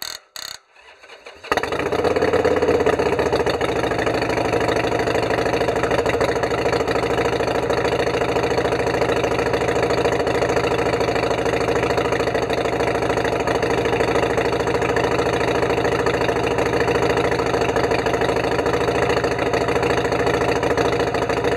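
Harley-Davidson Sportster Iron 883's air-cooled V-twin, fitted with new spark plugs, starting after a couple of clicks: it catches abruptly about a second and a half in and settles straight into a steady idle.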